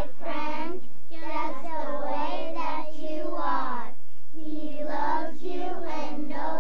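A group of children singing together in held, phrased lines of a simple hymn-like song.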